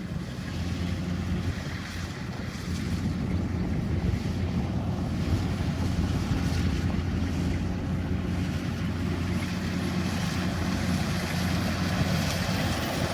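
Rice combine harvester's engine running steadily with a low, even hum, growing louder about two and a half seconds in.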